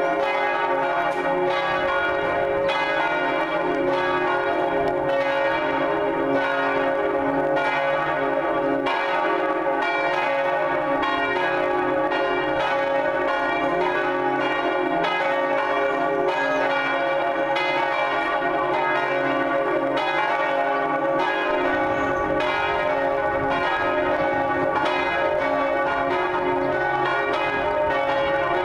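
Three Cornille-Havard church bells, cast in 1905 and 1954, swinging together in full peal. Their strokes overlap into a steady, continuous ringing.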